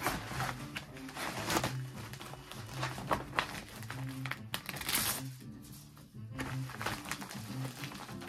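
Plastic bubble mailer crinkling and rustling as an order is slid in and the mailer is handled, with a sharp louder rasp about five seconds in as the backing strip is peeled off its self-seal adhesive flap. Soft background music plays under it.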